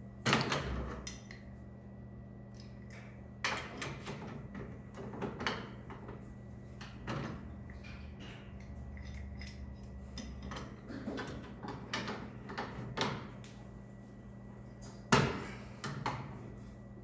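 Irregular metallic clanks and knocks of a wrench against a UTV's tie rod and front suspension parts as the tie rod is fitted and tightened, over a steady low hum. The sharpest knocks come just after the start and about two seconds before the end.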